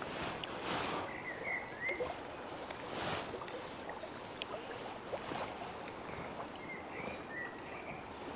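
Rain-swollen river running fast, a steady rush of water with a couple of louder surges. Short high chirps, most likely from a bird, come twice.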